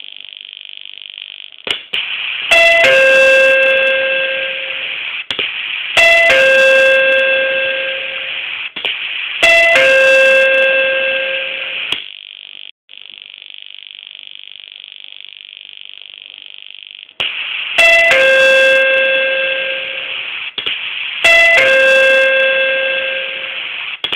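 A 25 W sound-effect player's speaker repeating an electronic chime about every three and a half seconds. Each chime starts sharply and rings as a multi-tone note that fades over about two seconds, over a steady hiss, with a pause of about five seconds midway.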